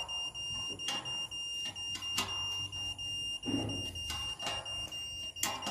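Satellite signal finder giving a steady high-pitched beep tone, the sign that the dish is aimed on the satellite with a strong signal. Scattered sharp clicks sound over it as the dish mount is tightened.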